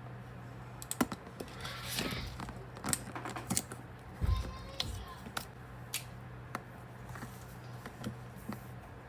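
Paper and stationery being handled while journaling: an irregular run of small clicks, taps and short paper rustles. A steady low hum runs underneath.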